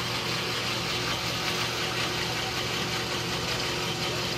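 Dayton horizontal band saw running steadily, its blade cutting through an aluminium extrusion: an even motor hum under the hiss of the cut.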